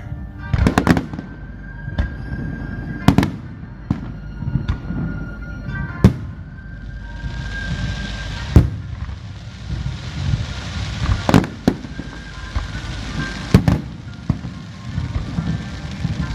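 Aerial fireworks shells bursting: about six sharp bangs two to three seconds apart, with a crackling hiss from crackle effects for a few seconds around the middle. Music plays underneath.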